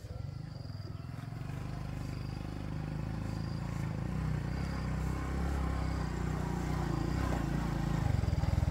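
Small step-through motorbike's engine approaching and growing steadily louder, loudest near the end as it pulls up close. Faint high insect chirps repeat about once a second behind it.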